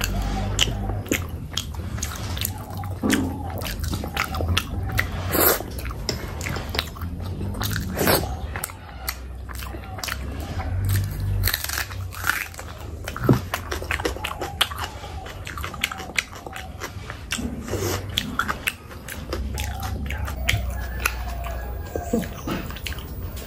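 Close-miked eating of spicy Indian meat curries: biting and chewing, with irregular crunches and wet mouth clicks and a few louder bites, over a steady low hum.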